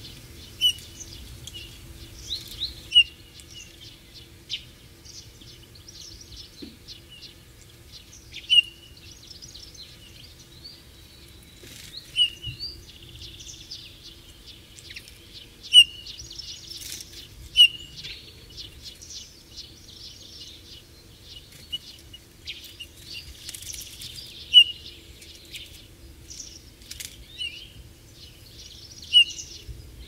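Eurasian bullfinch giving short, soft piping calls every second or few seconds, with quieter twittering notes between them.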